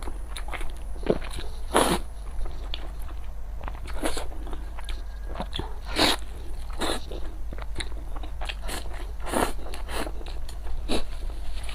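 Close-miked eating: crisp food being bitten and chewed, with repeated crackly crunches, the loudest about two, six, nine and eleven seconds in, over a steady low hum.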